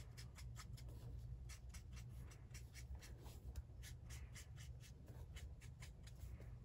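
Stampin' Blends alcohol marker tip stroking and dabbing on paper: faint, quick strokes, several a second, over a low steady hum.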